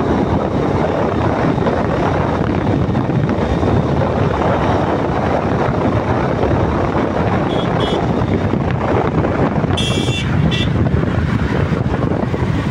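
Motorcycle riding at about 60 km/h, its engine and the wind rushing over the microphone making a steady, loud roar. A few short high-pitched beeps cut through near the two-thirds mark.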